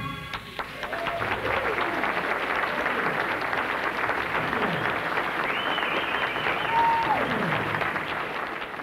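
Audience applauding, with a couple of long falling shouts over the clapping; the sound fades out near the end.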